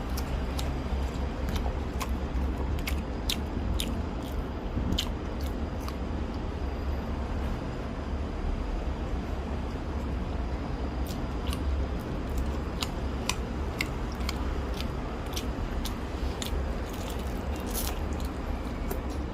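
A person biting and chewing crunchy food, with many short sharp crunches scattered throughout, over a steady low rumble.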